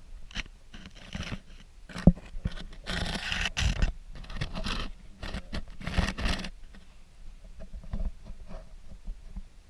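Muffled handling noise from a waterproofed action camera held underwater in a landing net: the housing scraping and knocking against the mesh and water. There is a sharp knock about two seconds in and louder scraping around three to four and six seconds in, then it goes quieter.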